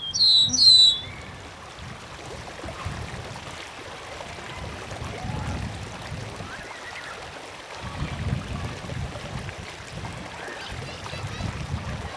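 A stream flowing steadily, with birds calling over it: two loud, sharp downward notes in the first second, then fainter chirps now and then.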